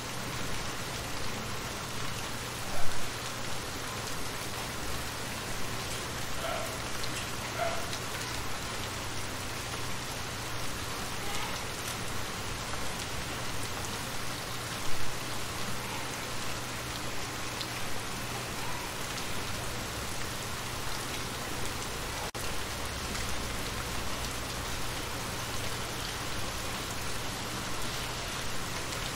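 Steady rain falling on shallow water, a dense even patter of drops, with a few louder drops standing out about three seconds in and again about fifteen seconds in.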